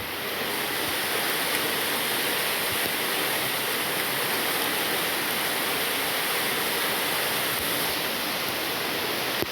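Flowing water rushing steadily, a constant hiss with no breaks.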